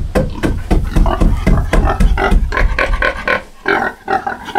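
Pig grunting in a rapid string of short grunts, about several a second, with a deep low rumble under the first half.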